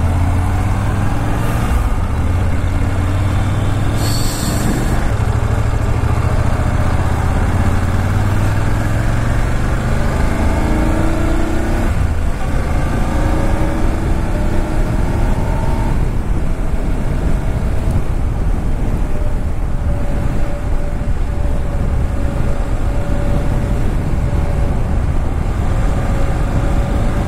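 BMW GS Adventure motorcycle under way: engine and wind rumble, the engine note rising, dropping back about twelve seconds in as a gear changes, then rising again. A brief hiss about four seconds in.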